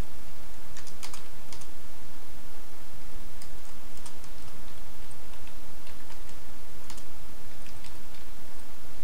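Typing on a computer keyboard: irregular short runs of key clicks with pauses between them, over a steady background hiss.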